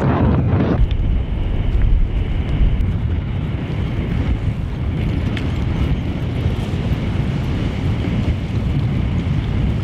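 Wind buffeting the microphone: a loud, steady low rumble, with a stronger gust in the first second.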